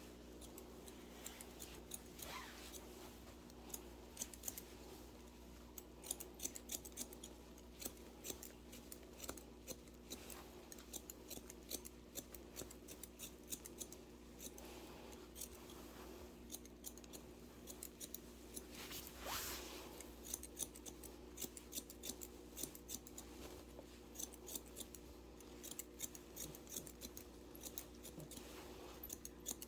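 Barber's scissors snipping hair in quick, irregular runs of short, sharp cuts, several a second.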